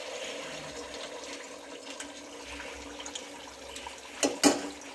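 Pitha batter frying in hot oil, a steady sizzle as the cakes puff up. Two sharp knocks come near the end.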